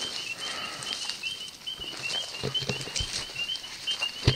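Footsteps and rustling as several people push through wet brush and tall grass, with a sharper knock near the end. Over it runs a steady high chirping of night insects, several short chirps a second.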